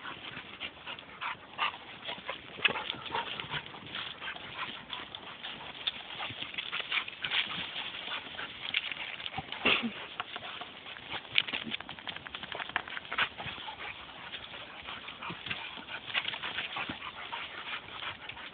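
Staffordshire bull terriers playing rough: brief dog vocal sounds among a busy stream of quick scuffling taps and knocks.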